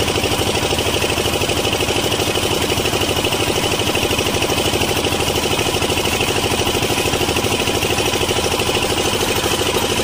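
Concrete mixer machine's engine running loudly and steadily, with a fast, even chugging pulse.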